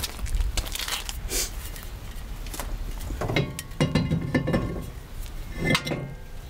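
Slotted brake rotor clinking and clanking against the wheel hub and studs as it is slid into place by hand. Light clicks come early, then a ringing metal clank with a run of knocks about three and a half seconds in and another ringing clank near six seconds.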